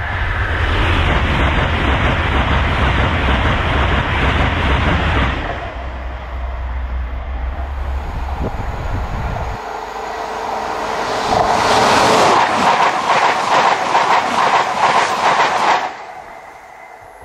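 An LNER Azuma high-speed train passing at speed: a loud rush with a deep rumble that eases off after about five seconds. Then a CrossCountry Class 220 Voyager diesel unit builds up and goes past with a fast, regular clatter of wheels over the rail joints, cutting off suddenly near the end.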